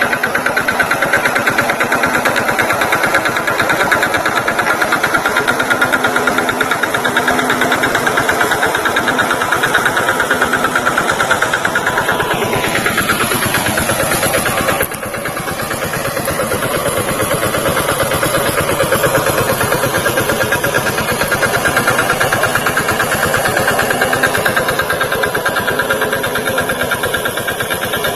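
VST Shakti tractor's diesel engine running steadily. About halfway through, a whine falls in pitch, and after it the engine runs a little quieter.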